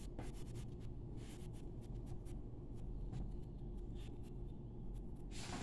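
Coloured pencil scratching across paper in short, repeated strokes, roughly three a second, over a low steady hum.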